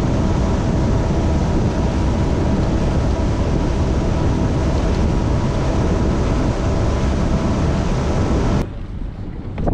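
Bass boat running at speed under its outboard motor: a steady engine hum under heavy wind rush over the microphone. It cuts off suddenly near the end.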